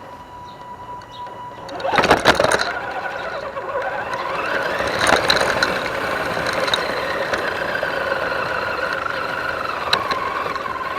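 Axial SCX10 DeadBolt RC truck's 27-turn brushed electric motor and geared drivetrain whining as it drives. A loud clatter comes about two seconds in, then the whine rises in pitch, holds steady, and dips near the end.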